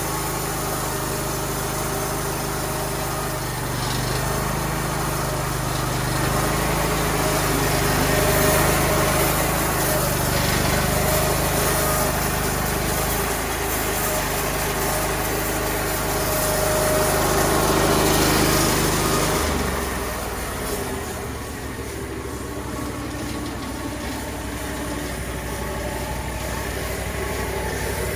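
Small gasoline engine running steadily. It gets louder through the middle, and about twenty seconds in its note changes and it drops back.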